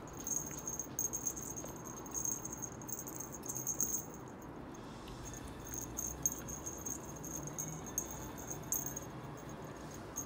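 Small jingle bell on a cat wand toy jingling in quick shakes as a kitten bats and bites at it, with a pause of about a second midway; soft rustling underneath.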